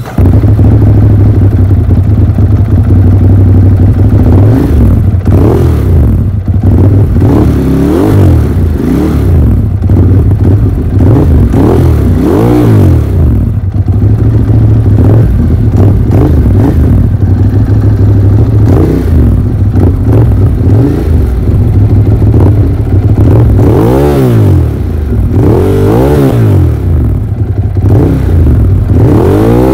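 Ducati Monster's L-twin engine running through its stock twin-outlet exhaust, idling with the throttle blipped over and over. The revs rise and fall sharply in a run of quick blips from about five to twelve seconds in, and three more come near the end.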